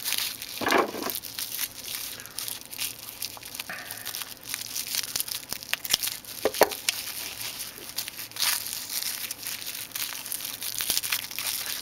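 A small clear plastic parts bag crinkling and rustling in the hands as it is worked open, with scattered light crackles and ticks.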